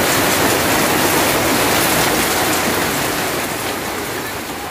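Heavy rain falling steadily on leaves and muddy ground, a dense even hiss that grows slightly quieter near the end.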